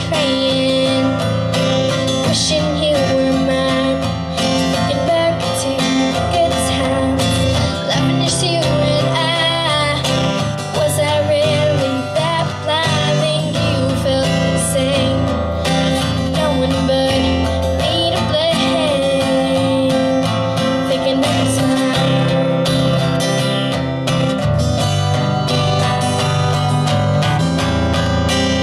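Live song performance: an acoustic guitar strummed steadily under a sung melody.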